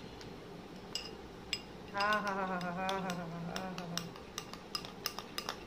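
Metal spoon clinking against a glass tumbler while stirring: a couple of light clinks in the first two seconds, then quick repeated clinks over the last second and a half. In the middle a woman's voice gives one drawn-out hum, falling slightly, for about two seconds.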